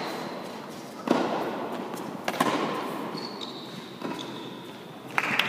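Tennis ball struck back and forth by rackets in a rally, three sharp hits about a second or more apart, each echoing in an indoor tennis hall. Applause breaks out near the end.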